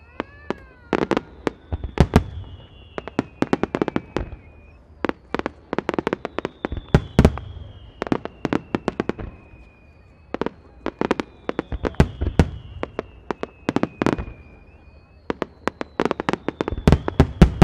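Aerial fireworks shells bursting in rapid clusters of sharp bangs with a deep rumble, salvo after salvo, over repeated long whistling tones that slowly fall in pitch.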